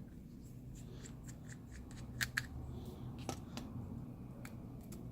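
Light clicks and taps of small repair tools working on an opened smartphone's internal parts, scattered irregularly, with two sharper clicks a little after two seconds in.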